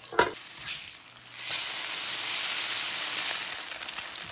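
A sharp knock just after the start. From about a second and a half in, a burger patty and an egg fry in a hot frying pan with a loud, even sizzle that eases a little near the end.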